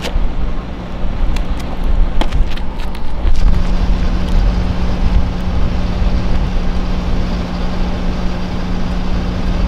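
Large tour bus engine idling: a steady low hum over a heavy rumble that grows louder a little over three seconds in, with a single sharp click about two seconds in.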